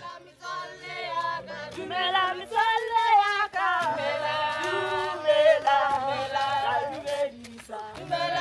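A group of men and women singing together a cappella, several voices holding notes in harmony, with sharp claps in between.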